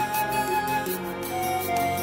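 Instrumental background music: a melody of held notes over sustained lower tones, with no voice.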